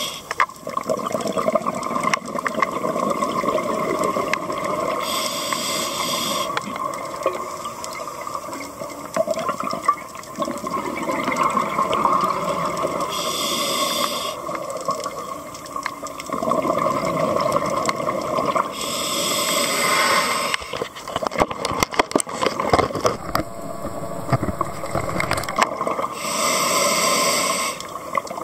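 Scuba diver breathing through a regulator underwater: four inhalations, about every seven seconds, heard as a short hiss of air, between them the gurgling of exhaled bubbles.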